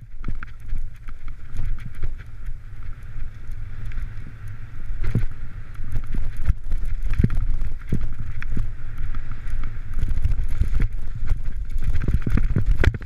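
Bicycle rattling and clattering over a bumpy dirt trail at speed, with many sharp knocks from the bike and a heavy wind rumble on the camera's microphone.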